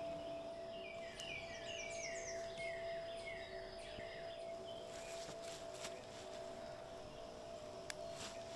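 A steady low drone of a few held tones, with a rapid run of short, falling, bird-like chirps starting about a second in and lasting about three seconds. A single sharp click near the end.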